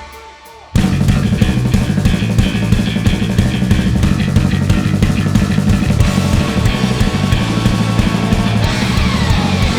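Punk/indie rock band playing live with drum kit and electric guitars: the band cuts out for a brief break at the start, then crashes back in under a second later at full volume and drives on with a fast, steady beat.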